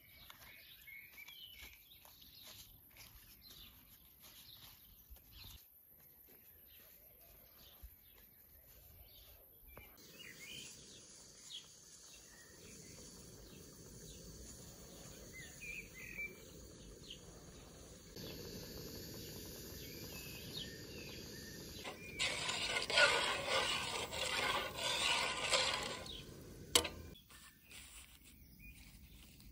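Rural outdoor ambience with birds chirping now and then and faint rustling and tapping of grape leaves being stacked by hand. About three-quarters of the way through there is a louder stretch of rushing noise lasting about four seconds, followed by one sharp click.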